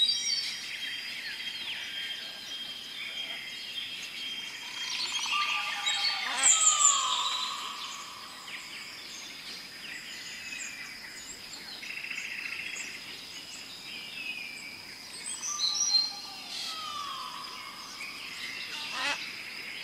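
Recorded jungle ambience: bird chirps and calls over a steady high insect drone. A falling whistle comes twice, about ten seconds apart, as the sound effect loops.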